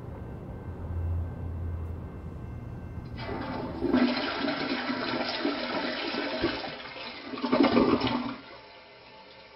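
Toilet flushing: a rush of water lasting about five seconds that surges just before it cuts off. Before it there is a low steady rumble.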